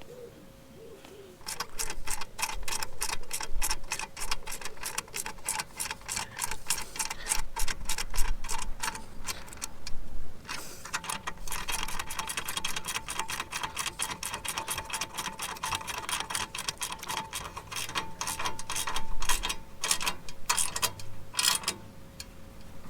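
Ratchet spanner clicking rapidly and evenly as a bolt is wound in, in two long runs with a short pause about ten seconds in. A faint steady hum sits underneath.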